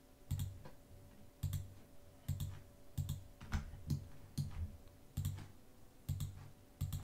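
Computer mouse clicking, about a dozen short separate clicks at an irregular pace of one or two a second as faces are selected one by one, over a faint steady hum.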